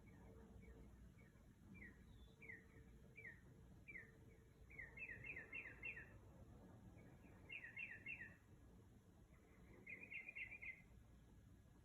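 A bird singing faintly: a string of short, falling whistled notes, one or two a second, then three bursts of rapid chirping, each under a second or so long.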